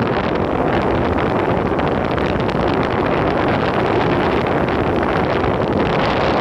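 Wind blowing hard across a phone's microphone during a ride on an electric skateboard, making a loud, steady rushing noise.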